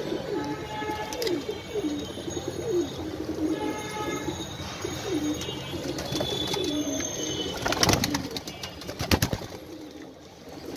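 Domestic pigeons cooing over and over, several birds overlapping. A few sharp taps or knocks come about eight to nine seconds in.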